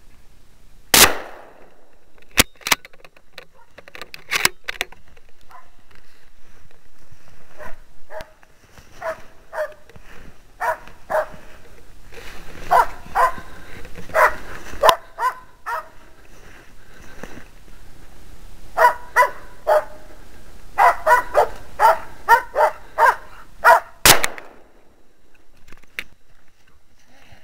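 A hunting dog barking in runs of quick barks, with sharp gunshot cracks: a loud one about a second in, a few smaller ones soon after, and another loud one near the end.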